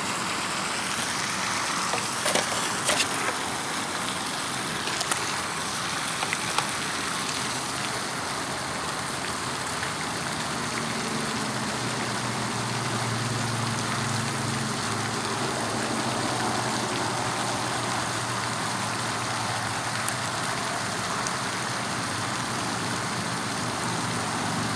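Steady background hiss with a few sharp clicks in the first seconds and a low hum in the middle. There is no motor or servo sound from the FT012 RC boat, which is not responding to the remote.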